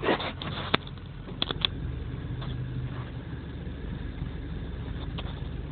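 Honda Stream's engine idling, a low steady hum heard from inside the cabin, with a few light clicks in the first two seconds.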